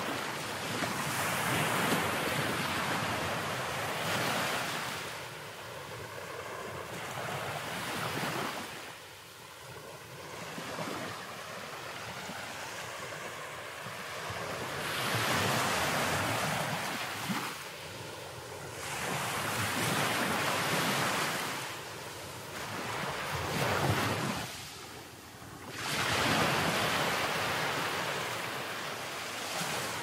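Sea waves washing in foaming surges over a flat rock shelf at the shoreline. The rush swells and falls away every few seconds, with short lulls between the surges.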